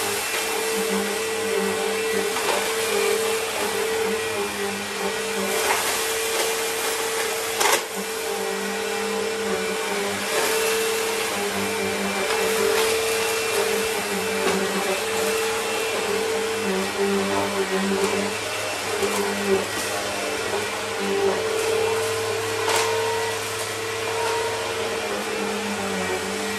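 Bissell bagless upright vacuum cleaner running steadily as it is pushed over a rug, its motor humming over a wide rush of suction. A few sharp clicks are heard as crunched food debris is sucked up, the loudest about eight seconds in.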